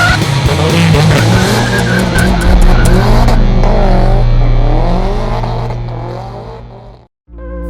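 A drifting car's tyres squeal in long wavering squeals over the running engine, and the sound fades away near the end.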